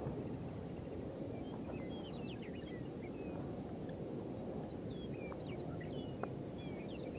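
Small birds chirping in two short flurries of quick high chirps, over a steady low rumble of outdoor noise.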